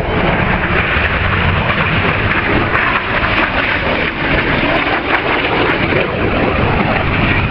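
Steady roar of jet aircraft engines with a low rumble underneath.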